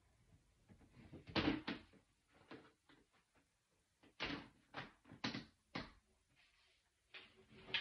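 A string of knocks and thuds off camera, like doors being opened and shut and things being handled, with the loudest pair about a second and a half in and a run of four even knocks about half a second apart near the middle.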